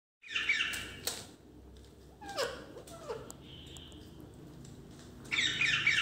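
A parrot calling: a cluster of shrill calls about half a second in, a few short calls that slide downward in pitch around two to three seconds, and a louder cluster of calls near the end.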